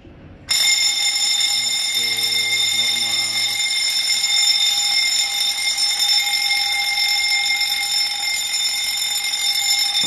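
Fire alarm bell set off by pressing a manual call point during a system test. It starts about half a second in and rings loud and steady without a break.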